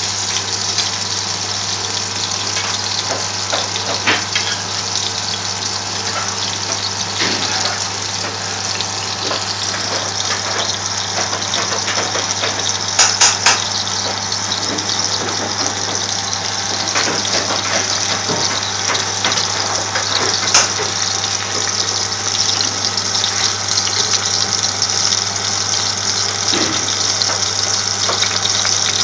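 Minced-meat shami kebab patties sizzling steadily as they shallow-fry in hot oil in a frying pan, with a few sharp pops of spattering oil, three close together about halfway through. A steady low hum runs underneath.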